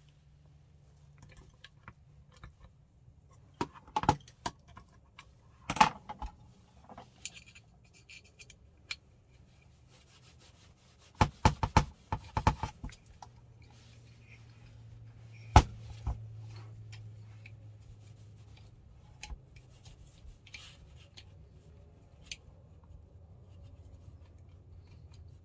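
Scattered clicks, knocks and rubbing as parts of a Wolverine MTW airsoft rifle's lower receiver and pistol grip are handled and fitted together. There is a quick run of clicks around the middle and the sharpest knock about two-thirds of the way through.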